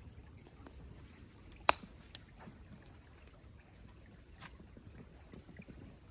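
Creek water trickling, with a sharp click about a second and a half in and a smaller one just after.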